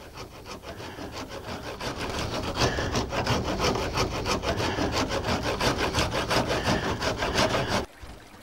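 Rapid back-and-forth sawing strokes on wood, a hand saw worked at the edge of an old farmhouse door, growing louder over the first couple of seconds and stopping suddenly near the end.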